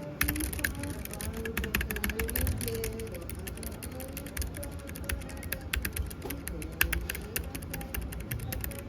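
Fast typing on a Keychron K3 low-profile mechanical keyboard with optical red linear switches: a quick, soft run of key clicks. A wavering pitched sound carries on underneath.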